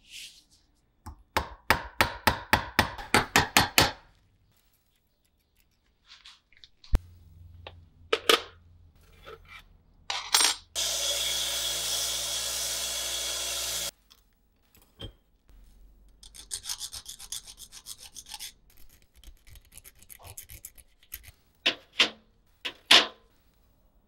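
Hand restoration work on a small rusted pocket knife: a run of about ten quick rubbing strokes, then a steady motorized tool running for about three seconds, then a burst of fast scraping strokes and two sharp knocks near the end.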